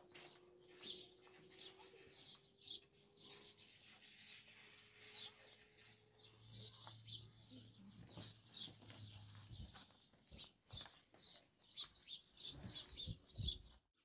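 Small birds chirping over and over, short high chirps a few times a second. A faint low hum comes in through the middle, and there are a few low thumps near the end.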